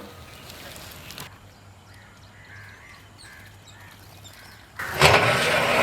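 Quiet outdoor ambience with faint, short bird calls. About five seconds in, a sudden loud rushing noise starts and continues to the end.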